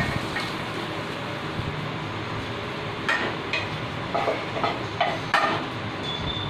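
Metal spatula scraping and knocking against a non-stick frying pan as fried mutton is tipped out of it into a steel cooking pot, with a quick run of clatters about halfway through, over a steady hiss.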